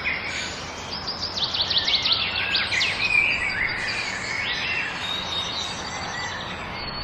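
Several wild birds singing and chirping over a steady background hiss, with a fast run of short, high notes about a second in that lasts roughly two seconds.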